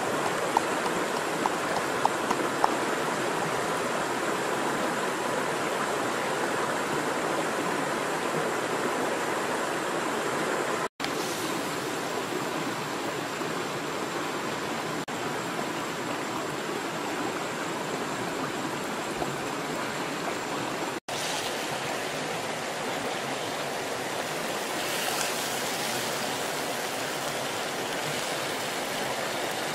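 River water rushing steadily over rocks, with a few light knocks in the first few seconds from a pestle pounding in a small mortar.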